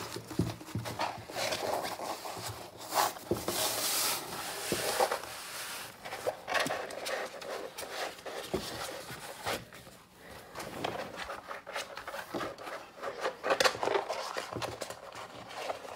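Paper and plastic rustling as a rolled diamond-painting canvas with its printed cover sheet is unrolled and pressed flat by hand. Irregular rustles and scrapes of palms rubbing over the sheet, with a brief lull about ten seconds in.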